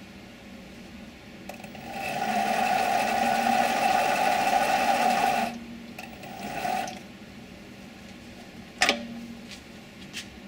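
7x16 mini lathe running for about four seconds with a steady geared whine, then stopping; a shorter run follows, then a sharp metallic clunk and, near the end, a faint click.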